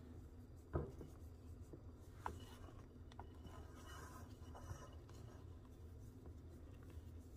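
Silicone spatula folding whipped egg whites into beaten yolks in a glass bowl, faintly scraping against the glass. There is a sharp tap just under a second in and a smaller one a little after two seconds.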